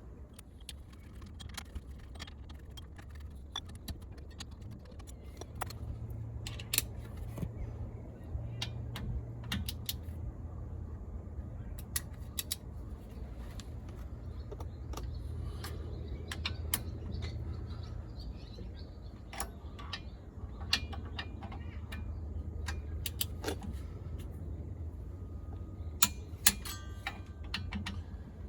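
Metal hand tools and parts clinking and clicking against each other in irregular knocks, over a steady low hum, with a quick run of rapid clicks near the end.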